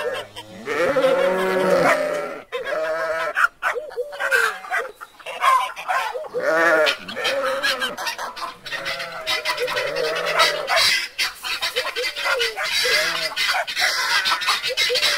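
Animal calls one after another, each a short cry that rises and falls in pitch, some overlapping.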